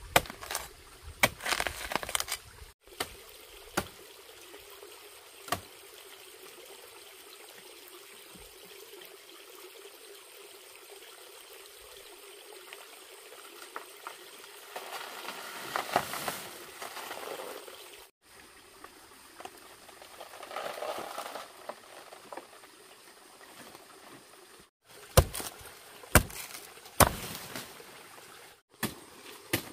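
Long-handled knife chopping into a banana plant's stalk to bring down a bunch of bananas: a few sharp strikes in the first seconds and three more in quick succession near the end, over a steady hiss of running water.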